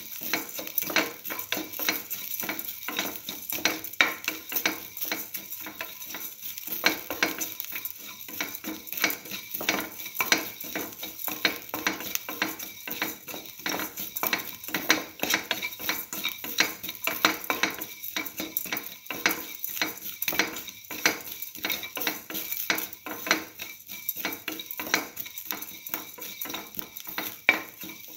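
A spatula scraping and tapping against a metal pan as shallots, ginger and mustard seeds are stirred and sautéed in oil. The scrapes are rapid and irregular over a light sizzle.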